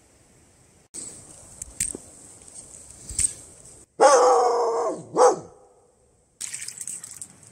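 A dog barking twice: a loud, longer bark with falling pitch about four seconds in, then a shorter one a second later.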